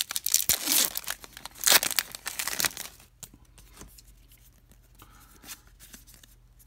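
A trading card pack wrapper being torn open and crinkled, loud for about the first three seconds, then only faint handling of the cards.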